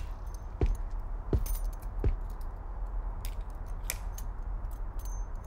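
A few light knocks and small clinks: three evenly spaced low thumps in the first two seconds, then a couple of sharp clicks, over a steady low rumble.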